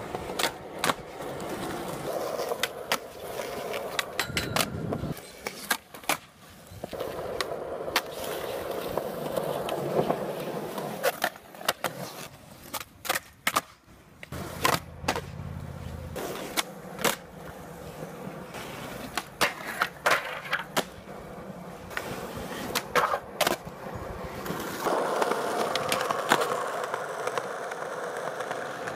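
Skateboard wheels rolling over smooth concrete, broken by repeated sharp clacks of the board popping and landing.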